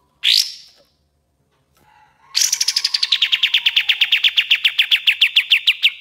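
Kapas tembak (olive-winged bulbul) singing: a single sharp upward-sweeping note just after the start, then from about two seconds in a fast, even rattle of about ten notes a second, each note dropping in pitch. This is the rapid 'tembak' burst that the bird is named for.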